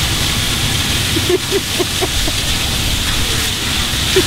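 Steady outdoor background noise: a fluttering low rumble under a constant high hiss, with a few faint short tones between about one and two and a half seconds in.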